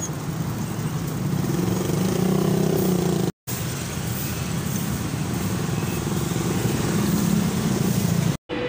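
Motorcycle engine running at road speed with traffic around it and wind noise over the microphone. The sound drops out completely for a moment about three seconds in and again near the end.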